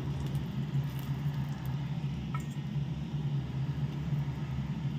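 Steady low kitchen hum under a faint even hiss, with a light metal clink about halfway through as steel tongs touch the pan.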